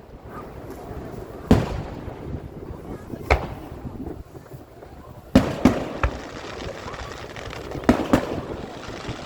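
Fireworks going off: a string of sharp booms, about seven in all, some coming in quick pairs, over a steady background hubbub.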